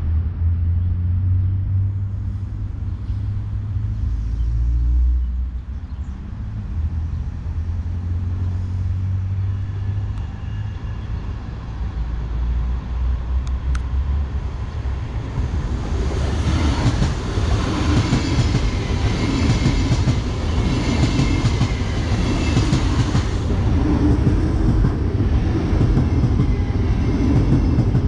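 Siemens Desiro RUS "Lastochka" electric multiple unit (two coupled ES1 sets) approaching along the track, its running noise on the rails growing from about halfway through and peaking in a rushing hiss, then passing close by with a steady rumble and clatter of wheels over the rails near the end.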